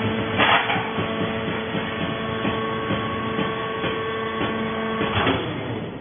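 Vertical hydraulic fiber baler running: a steady whine from its hydraulic power unit while the press moves, with a short rush of noise about half a second in and again just after five seconds, when the steady whine stops.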